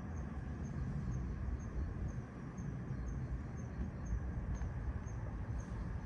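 Low, steady rumble of a suburban street at night, with a faint high chirp repeating evenly about twice a second.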